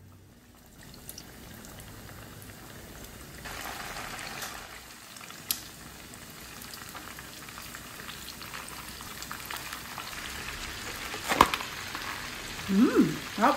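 Breaded pork belly deep-frying in a pan of hot oil: a steady sizzle and bubbling that grows louder in the first few seconds as the pieces go in. Near the end, a sharp click and a short, louder pitched sound.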